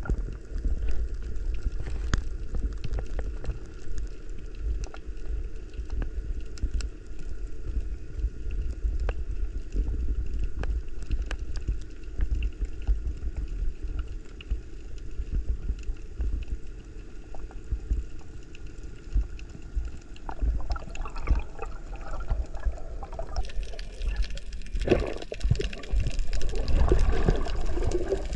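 Underwater sound picked up inside an action camera's housing: a steady low rumble of moving water with scattered faint clicks. Near the end it changes to louder bubbling and rushing water.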